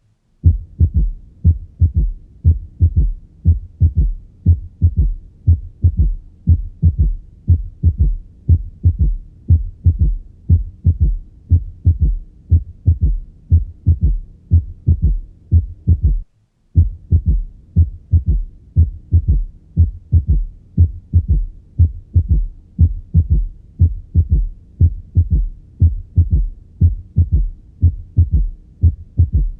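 Heart sounds heard through a stethoscope bell at the cardiac apex: a steady gallop rhythm of low thumps, with a soft third heart sound (S3) just after the second sound in early diastole. This ventricular gallop is associated with heart failure and systolic dysfunction. The beats break off for about half a second around the middle, then resume.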